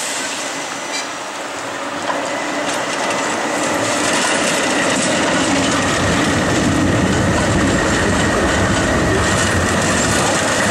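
Articulated city tram passing close by, its wheels rumbling along the rails. The sound grows louder from about two seconds in and then holds steady, with a thin, steady high whine above it.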